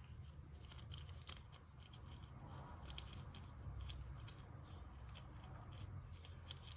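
Faint, irregular small clicks and scrapes of hand work on the brake caliper carrier while ceramic paste is spread on its pad slides, over a low steady hum.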